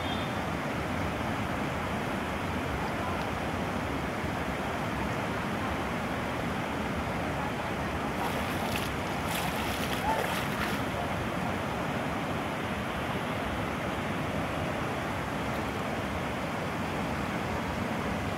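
Steady rush of water spilling over a low weir, with brief splashing about halfway through as a small net is pulled out of the shallow water.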